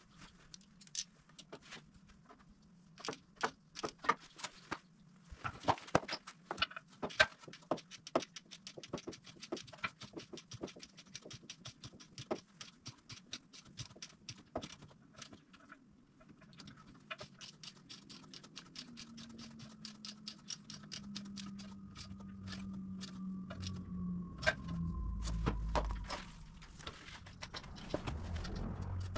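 Runs of small metallic clicks and clinks from a wrench and hand tools working the winch power-cable terminal nuts. A low steady rumble builds up over the last several seconds.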